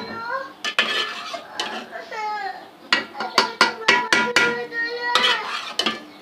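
A spoon clinking and knocking against a metal cooking pot, a rapid run of sharp knocks, as chicken korma is spooned and spread over a layer of rice for biryani.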